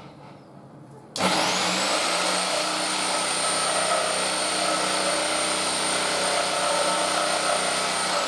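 A handheld electric power tool's motor starts about a second in with a quickly rising whine. It then runs at one steady high pitch over a loud rushing noise, and its whine begins to wind down near the end.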